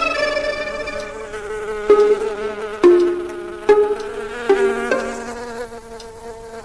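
Slow instrumental music: single pitched notes struck about once a second, each ringing on as the music gradually fades out.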